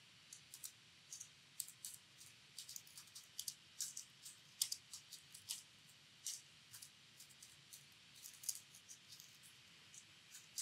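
Typing on a computer keyboard: faint, irregular keystroke clicks in quick runs with short pauses between them.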